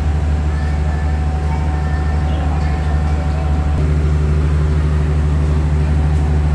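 Steady low drone of a stationary passenger train's diesel engine running at idle, with a slight change in its note about four seconds in.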